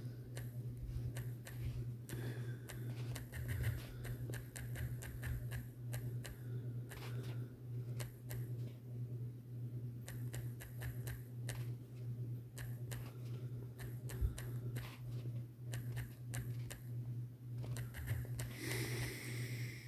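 Typing on a smartphone's on-screen keyboard: a stream of quick, irregular taps, one per keystroke, with a short pause about halfway through, over a steady low hum.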